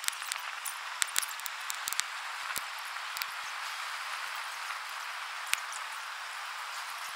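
Large log bonfire burning, a steady rushing hiss of flames with sharp crackles and pops from the wood, several close together about a second in.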